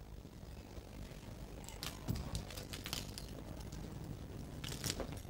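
Light clicks and rustles of a small object being handled in the hands, in short clusters about two seconds in and again near the end.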